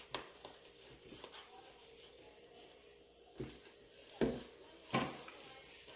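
Insects calling in one steady, unbroken high-pitched whine, with a few soft knocks in the second half.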